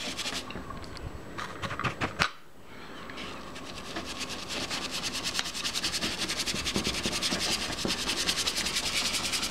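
A soft brush scrubbing pigment into paper to blend it. A few scattered brush strokes come first, then about three seconds in a fast, steady run of short scratchy strokes starts, about eight a second, growing louder.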